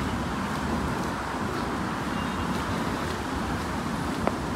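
Steady road traffic noise from passing cars, with a single sharp click about four seconds in.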